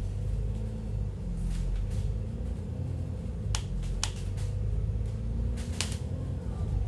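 Steady low rumble of a moving vehicle heard from inside the cabin, with a few sharp rattling clicks, the loudest about three and a half, four and six seconds in.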